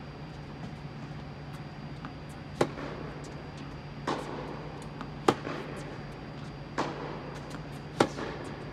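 Tennis ball struck hard by a racket three times, about two and a half seconds apart, with softer ball impacts in between. Each hit rings with a short echo in the domed indoor hall, over a steady low hum.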